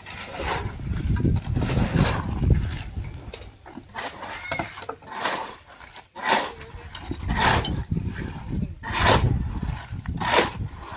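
Repeated rasping, scraping strokes, about one every second and a bit, over a low rumble that is strongest in the first half.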